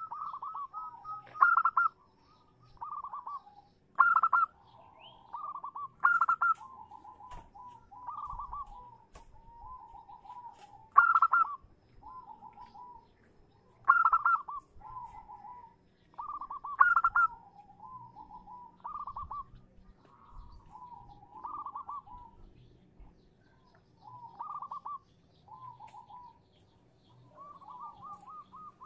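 Zebra dove cooing: a female's call used to lure males. It gives a sharp note then a rapid rolling trill of coos, phrase after phrase every two to three seconds.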